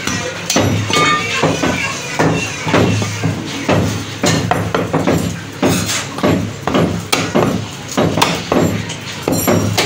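Meat cleaver chopping mutton front leg on a wooden chopping block: repeated, irregular chops, roughly one or two a second.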